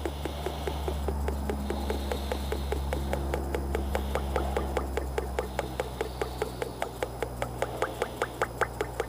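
Motor oil glugging out of a quart bottle into the engine's oil filler, about five glugs a second, getting louder near the end, over a steady low hum.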